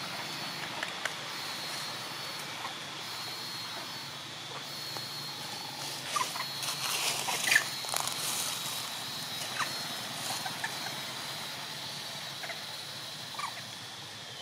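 Outdoor woodland ambience: a steady high whine, broken briefly now and then, with scattered short chirps and clicks around the middle.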